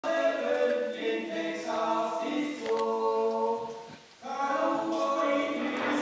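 A choir of several voices singing a local Swiss folk song a cappella, in long held chords. The singing stops briefly about four seconds in, then starts again.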